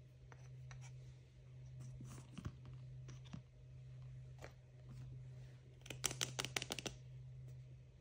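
Hands handling and opening plastic toy packaging: scattered light rustles and clicks, then a quick run of crackling about six seconds in. A low steady hum sits underneath.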